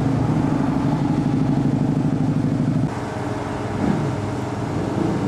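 V-twin drag motorcycle engine running steadily on its pit stand with a fast pulsing beat. The sound changes abruptly about three seconds in.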